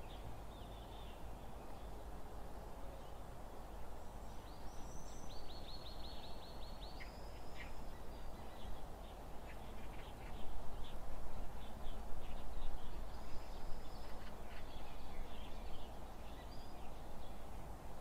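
Park ambience: a steady background hiss with small birds chirping and trilling throughout, including a rapid trill about five to seven seconds in.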